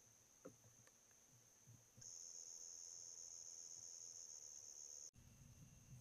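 Night insects trilling steadily at a high pitch, faint, becoming louder about two seconds in and dropping back near the end, with a few faint soft knocks.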